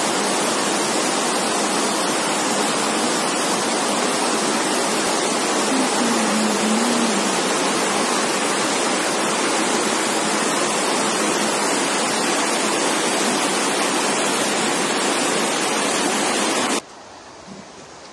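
Steady rush of a muddy flash-flood torrent pouring through the streets, an even hissing noise. Near the end it drops abruptly to a much fainter rush of water.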